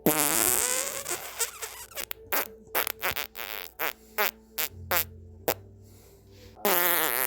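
Fart sound effects: a long fart in the first two seconds, then a quick run of short sputtering pops, and another loud one starting near the end.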